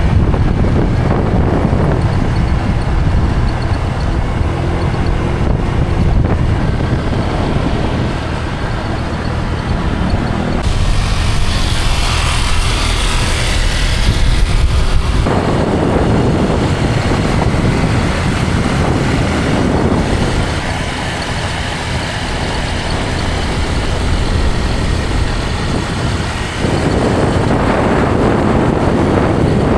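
Motor scooters running while being ridden, with engine and road noise close on the microphone; the sound changes abruptly several times, as from joined clips.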